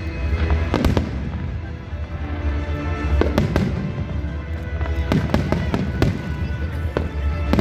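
Aerial fireworks bursting overhead: a string of sharp bangs at irregular intervals, with music playing underneath.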